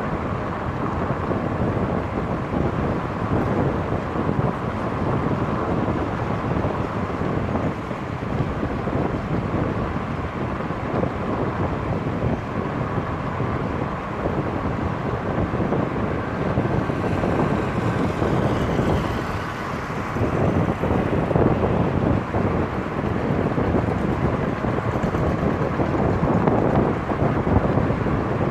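Wind buffeting a microphone mounted outside on the roof of a moving car, with steady road and tyre noise from the car driving along underneath.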